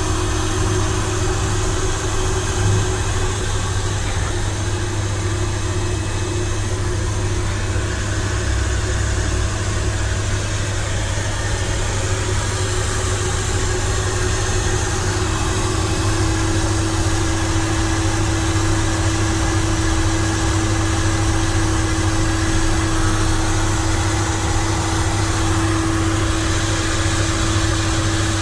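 Heat gun running steadily, its fan motor whining at a constant pitch over a low steady hum, blowing hot air to dry a coat of sodium silicate on a thrown clay pot.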